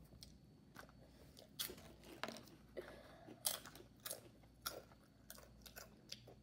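Crunchy Flamin' Hot Cheetos being chewed: a run of irregular, crisp crunches.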